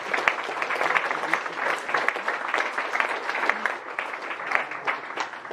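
Audience applauding, many hands clapping at once, thinning out near the end.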